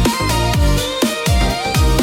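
Background music: an upbeat electronic track with a steady beat, falling bass notes and a synth melody.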